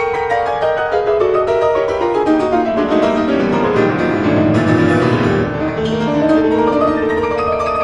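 Background music with quick, busy piano or keyboard notes.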